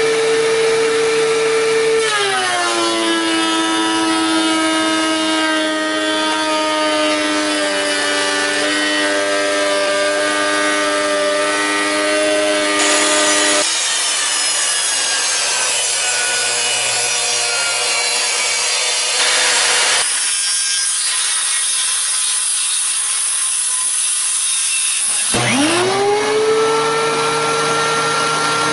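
DeWalt benchtop thickness planer running and planing a board: about two seconds in, the motor's whine drops in pitch as the cutter head takes the load. Later the sound turns to a rough hiss, and near the end the motor spins back up to full speed with no board in it.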